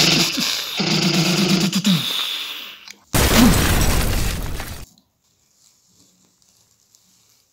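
Battle sound effects: a man shouting for about two seconds, then a sudden loud explosion about three seconds in that dies away within two seconds.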